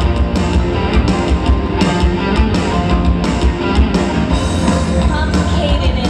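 Live rock band playing loudly through PA speakers, with a steady drum beat and a woman singing into a microphone.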